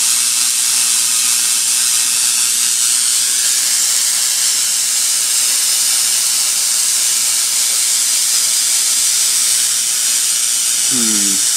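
High-voltage spark gap firing continuously, a loud steady hiss with a faint low hum underneath, as it powers a homemade corona motor.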